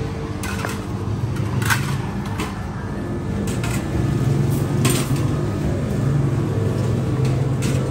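A steady low mechanical hum, with short sharp clicks and clinks scattered through it, at a charcoal grill stall.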